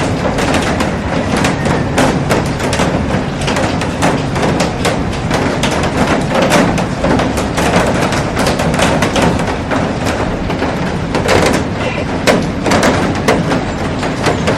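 Heavy rain falling on a glass roof and garden: a dense, steady hiss shot through with many sharp drop hits on the glass.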